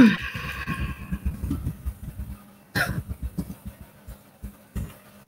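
A short cough right at the start, then low, irregular rumbling and a few brief knocks over a faint steady electrical hum, picked up by a computer microphone.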